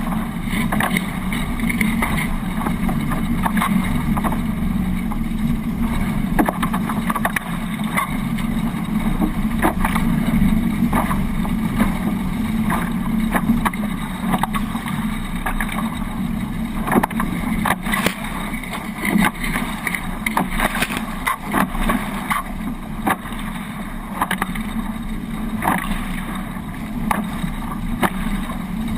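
Hobie 18 catamaran under sail: continuous rush of water along the hulls with frequent sharp slaps and splashes, and wind buffeting the microphone.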